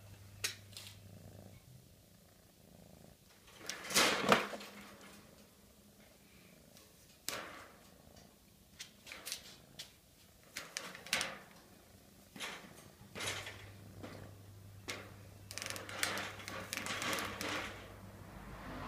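A kitten playing at a broom inside a wire cage: a series of short rustles and rattles against the cage, the loudest about four seconds in and a busy run of them near the end, over a faint steady low hum.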